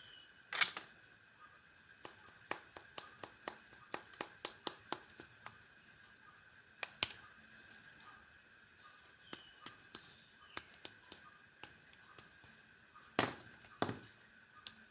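Plastic snack packaging being handled and opened: irregular sharp crackles and snaps, with louder snaps about half a second in, about halfway through and near the end.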